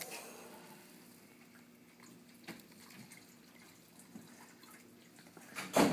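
Quiet room tone with a faint steady low hum and a few soft clicks, then one brief loud knock near the end.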